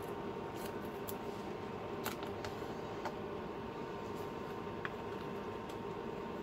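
A steady whir with a faint high tone, and a handful of small, sharp clicks and taps at irregular times, as of plastic food containers, lids and stickers being handled.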